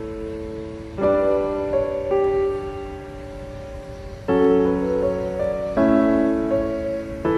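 Background piano music: chords struck four times, about a second in, past four seconds, near six seconds and at the very end, each left to ring and fade.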